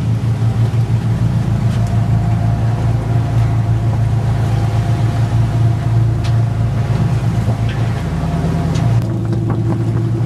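A fishing boat's engine running with a steady low hum, under a rough, uneven rumble.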